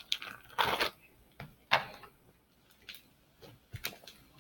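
Crunchy slime with styrofoam pieces mixed in, squeezed and worked by hand: a string of irregular sharp crunching crackles, about one every half second to a second.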